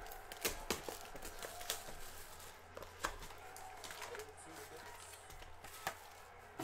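Cardboard trading-card hobby box being opened and its foil-wrapped pack lifted out of the box's tray and set down: light rustling and crinkling of packaging with scattered sharp clicks, the loudest about three seconds in and near the end.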